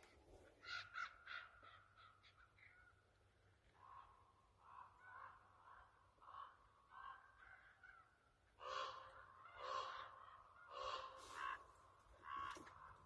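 Common ravens calling: a faint series of short croaking caws, quick at first, then spaced out, louder over the last few seconds. The ravens are agitated by a hawk at the bait.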